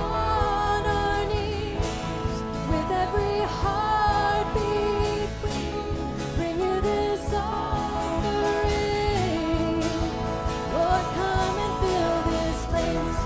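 A woman singing a contemporary worship song with a live band of electric guitar and bass guitar behind her.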